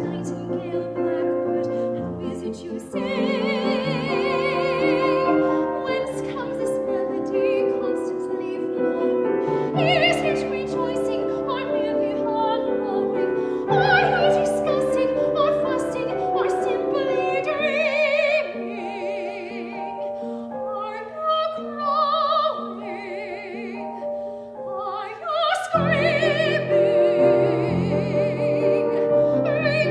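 A soprano singing in a classical, operatic style with strong vibrato, accompanied by piano. The voice carries sustained high notes, with a thinner, quieter passage in the second half before the full accompaniment returns near the end.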